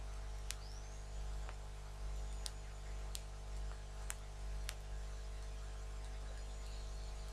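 Steady electrical mains hum from bench equipment, with a handful of small sharp ticks in the first five seconds as a soldering iron tip and tweezers touch a laptop motherboard while solder bridges between a small chip's pins are cleared.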